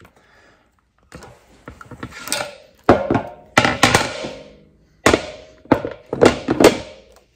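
A blade scraping a hard plastic jack platform, then a series of sharp knocks and scrapes as a steel bottle jack is handled and seated in the plastic base. The loudest knocks come about three seconds in and again a little before the end.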